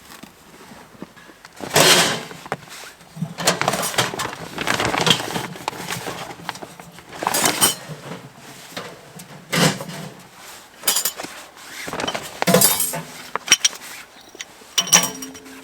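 Irregular rustling, knocking and clinking of camp gear being handled at close range, with a brief ringing clink near the end.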